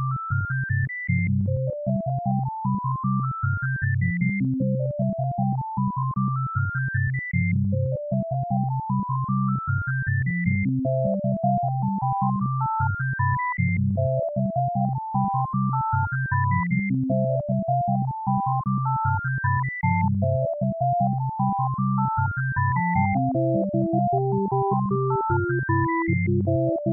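Electronic synthesizer music: rising runs of single notes, each climbing over about three seconds and then starting again, over a steady pulsing bass. A second line of notes joins the runs partway through, and a lower melody comes in near the end.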